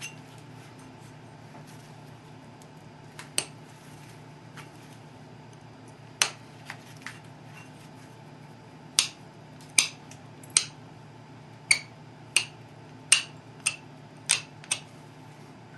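Pressure flaking a chert Dalton point with a hand-held pressure flaker: about a dozen sharp snaps, each one a flake popping off the edge, coming irregularly and more often in the second half. A steady low hum runs underneath.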